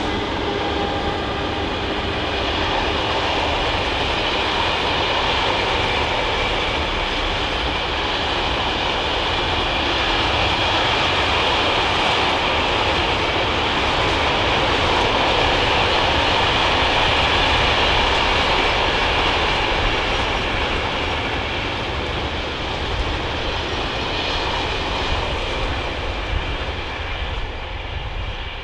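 Long freight train of covered and tarped wagons rolling past behind a BB 26000 electric locomotive: a steady rumble of wheels on rail that swells to its loudest a little past the middle and fades near the end as the wagons draw away.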